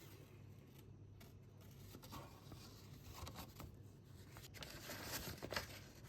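Faint rustling and light handling noises with a few clicks, building to a louder rustle about five seconds in.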